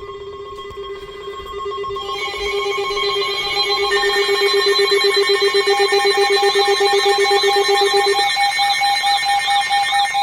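Emergency alert tones going off together, signalling an incoming tornado warning. Steady, rapidly pulsing electronic tones are joined by more tones about two and four seconds in, and by a repeating warbling chirp from about six seconds. The mix grows louder, and one of the lower tones stops about eight seconds in.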